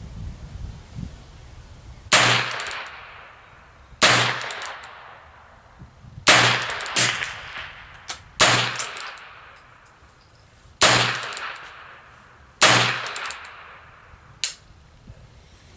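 .22 LR revolver fired six times at a steady pace, about two seconds apart, each sharp report trailing off in a ringing echo. A shorter, lighter crack comes near the end.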